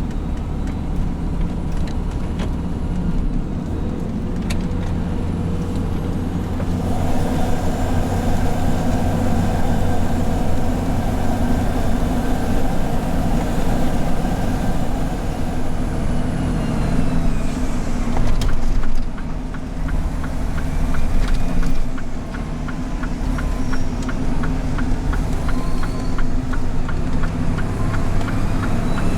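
2017 Mitsubishi Fuso Super Great heavy truck's diesel engine running on the road with an abnormal noise, which the Fuso dealer put down to the turbocharger, probably a failed turbo. A higher rushing noise joins the steady engine sound about a quarter of the way in.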